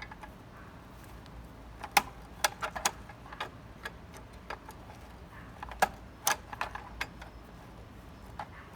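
Pliers clicking and tapping against the engine's ignition switch hardware: about a dozen sharp, irregular clicks, clustered around two seconds in and again around six seconds in.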